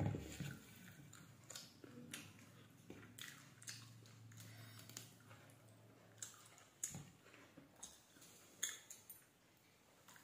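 Faint eating sounds: chewing and mouth smacks with scattered soft clicks and squelches as fingers pick apart curried tangra fish on a steel plate.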